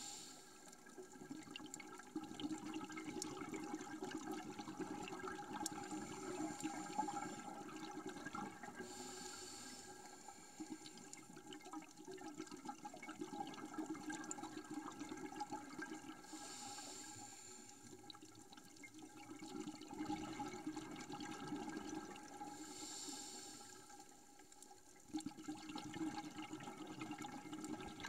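Underwater sound of a scuba diver breathing through a regulator: a hiss comes back about every six to seven seconds, with a rushing, bubbling sound between the hisses and a scatter of faint clicks.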